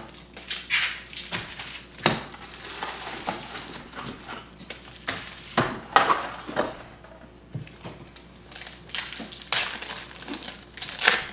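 Foil wrappers of Topps Chrome football card packs crinkling and rustling in irregular bursts as the packs are taken out of the box, handled and torn open.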